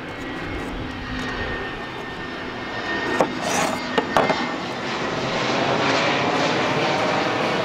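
Twin-engine jet airliner passing overhead: a broad rushing engine noise that grows steadily louder toward the end. A few sharp knife clicks on a wooden cutting board come about three and four seconds in.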